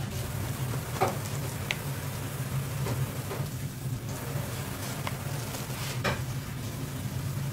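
Kitchen knife cutting through a kimbap roll and knocking on the cutting board a few times, over a steady sizzling hiss and low hum.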